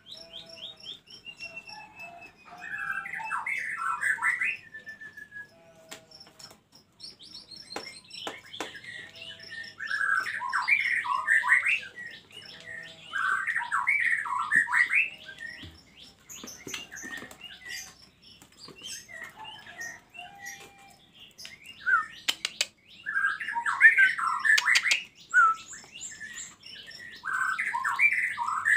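Songbird song from a caged pair of white-rumped shama and oriental magpie-robin: about five loud bursts of rich, varied warbling phrases a few seconds apart, with softer chirps and a few sharp clicks in between.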